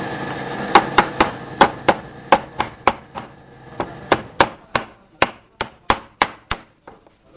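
Automatic CNC steel-rule bending machine working a strip of steel rule: a quick series of sharp metallic clacks, about three a second at uneven spacing, over a steady machine hum that fades in the first half.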